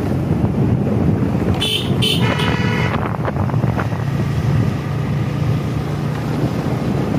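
Vehicle engine running steadily on the move, with the horn sounded about two seconds in: two short toots and then a longer one.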